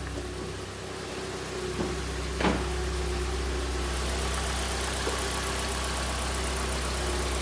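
Hyundai i40's rebuilt G4NA 2.0-litre four-cylinder petrol engine idling steadily, running evenly and quietly with no knock after its short block and timing chain tensioner were replaced. A short click about two and a half seconds in.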